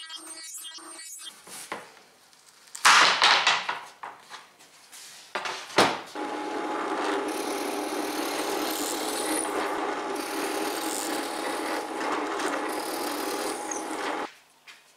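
Drill press running and boring into a solid hardwood panel, a steady machine noise for about eight seconds that stops just before the end. Before it comes a brief loud burst of workshop noise and a sharp knock.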